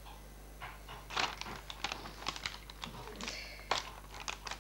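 Irregular light clicks and taps of hands working at small things on a tabletop, coming in quick clusters from about a second in, over a steady low mains hum.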